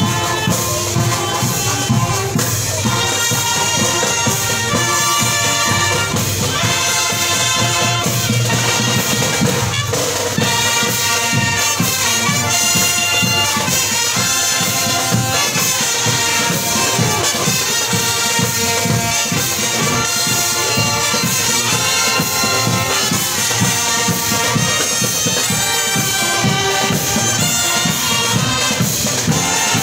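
Brass marching band playing a tune: trumpets, saxophones, mellophones and sousaphone, with percussion keeping a regular beat.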